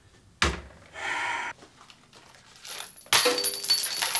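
A sharp knock, then a short rustle. From about three seconds in, a rapid clatter of metal kitchenware: a quick run of clinks and rattles with a ringing tone.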